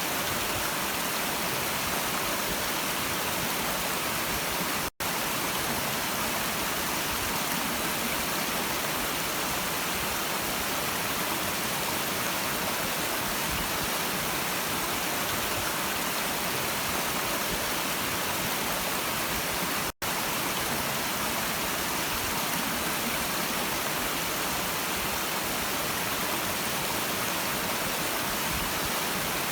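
A stream's water rushing and babbling in a steady, even wash, with the sound cutting out for an instant twice, about five and twenty seconds in.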